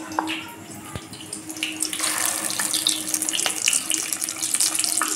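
Batter-coated chicken satay skewers deep-frying in hot oil in a kadai: a steady sizzle with crackling and spitting, growing louder about two seconds in. A faint steady hum runs underneath.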